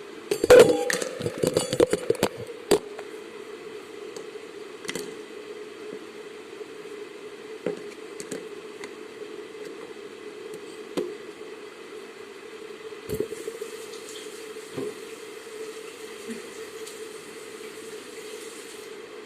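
Slime being squished and worked by hand: a dense run of wet crackling pops in the first few seconds, then scattered single pops, with a faint hiss over the last few seconds.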